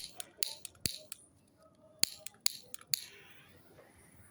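Firework from a pink-shot repeater going off as a string of sharp, irregular pops and cracks. A brief hiss about three seconds in.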